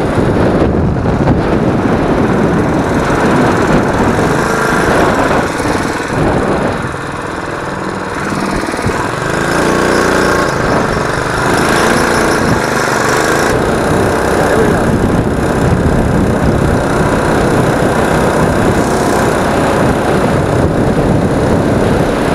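Predator 212 single-cylinder four-stroke engine of a small ATV running under load while riding, with heavy wind noise on the microphone. The engine eases off about seven seconds in, then picks up again.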